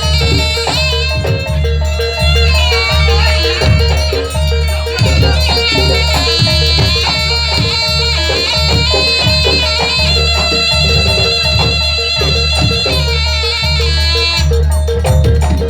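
Loud traditional East Javanese ensemble music: a shrill, ornamented reed-pipe melody, likely a sronen shawm, over regular drum beats and a repeating pitched gong-like tone. The melody wavers and trills, then holds steadier notes in the second half.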